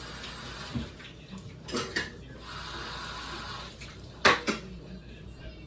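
Dishes and cutlery clinking and knocking: a few separate clatters, the loudest about four seconds in, with a stretch of hiss between them.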